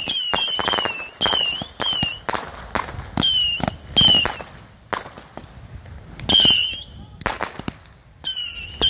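A multi-shot consumer firework barrage firing shot after shot, roughly one or two a second. Each launch is a sharp pop followed by a short, high whistle. There is a brief lull about five seconds in.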